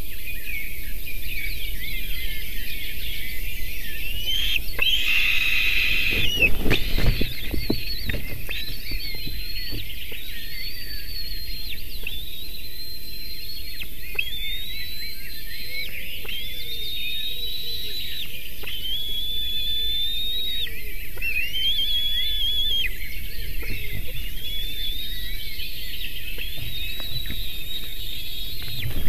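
White-tailed eagle eaglets begging: a thin, high whistled call that rises and then holds for about a second, repeated every couple of seconds. About five seconds in there is a brief loud rustling burst with low thumps.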